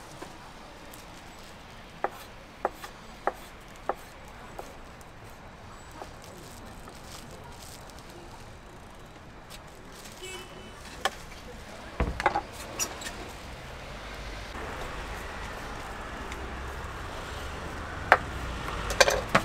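A knife chopping sundae (Korean blood sausage) on a cutting board: a run of sharp chops a little over half a second apart, then scattered knocks and clatter. A low rumble comes in about two-thirds of the way through.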